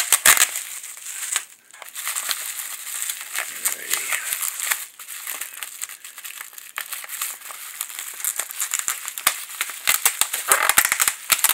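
Packaging crinkling and rustling as it is handled and unwrapped, a dense irregular crackle with louder bursts at the start and again near the end.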